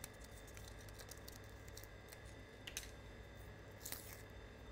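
Foil being peeled and torn off the neck of a champagne bottle: faint crinkling with scattered small clicks, a couple of them sharper around three and four seconds in.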